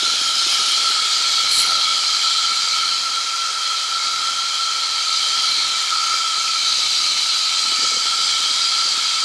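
Steady hiss of wind and engine noise aboard a P&M QuikR Explorer microlight trike in flight on approach, with a constant high whine running through it.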